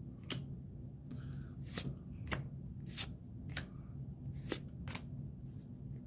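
Pokémon trading cards being flipped through one at a time, each card slid off the stack with a short crisp flick, about one every half second, over a low steady hum.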